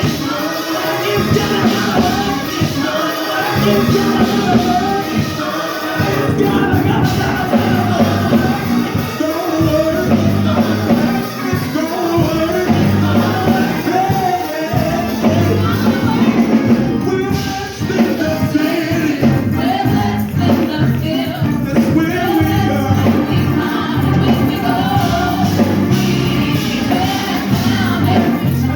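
Gospel music with singing and a tambourine keeping a steady beat.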